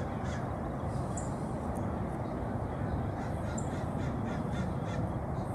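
Outdoor ambience: birds calling a few times, with a quicker run of calls in the middle, over a steady low rumble.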